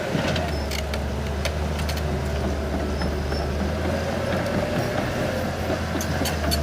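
Heavy diesel engine running steadily with a constant low drone, with scattered sharp clicks and knocks over it.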